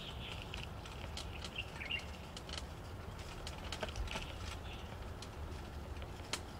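Outdoor ambience heard from a moving bicycle: a steady low rumble with scattered light clicks, and a few faint bird chirps in the first couple of seconds and again about four seconds in.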